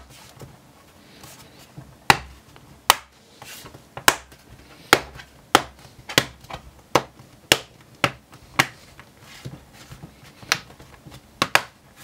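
Plastic base panel of an HP Pavilion x360 laptop being pressed back onto the chassis, its retaining clips snapping into place: about a dozen sharp clicks at uneven intervals.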